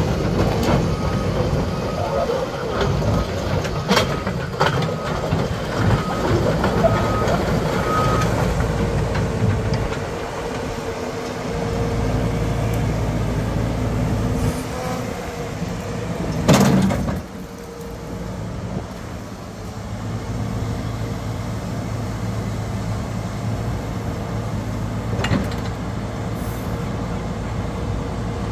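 2018 JCB JS131LC tracked excavator's diesel engine running under load as its hydraulics work the boom, arm and bucket, with a steady whine. A repeated high beep sounds during the first eight seconds, and a single loud knock comes about sixteen seconds in.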